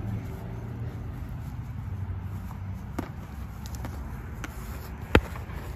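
Boxing gloves smacking on gloves and arms as punches land during sparring: a few sharp, scattered impacts, the loudest about five seconds in, over a steady low background rumble.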